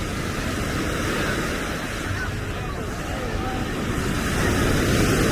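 Ocean surf breaking and washing on the beach, with wind on the microphone; the wash swells louder near the end.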